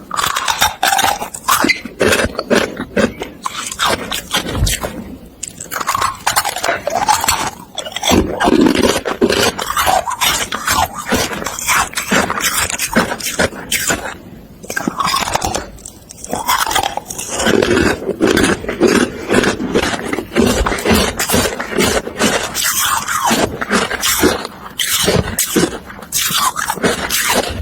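A person biting and chewing hard carbonated ice: a dense run of sharp cracks and crunches that keeps going, pausing briefly now and then.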